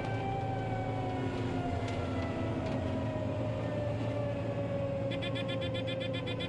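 John Deere 9500 combine running on the road, a steady engine drone with a whine that slowly falls in pitch. Near the end, rapid electronic beeping for about two seconds.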